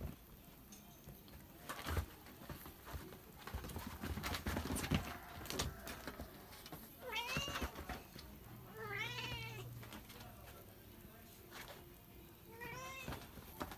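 A cat meows three times, each call rising and then falling in pitch, about seven, nine and thirteen seconds in, the middle call the longest. Before the calls come a few knocks and scuffling sounds from kittens playing and jumping about on a bed.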